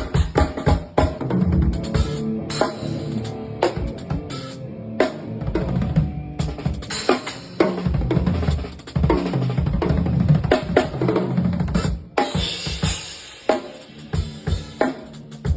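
Drum kit played in fast, busy gospel-chops fills: rapid strokes across kick drum, snare and toms, with rimshots, and a cymbal crash about twelve seconds in.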